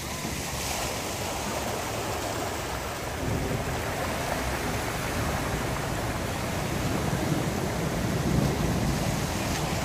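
Cars driving through a flooded street, tyres swishing and splashing as they throw up water; the sound grows from about three seconds in and is loudest near the end.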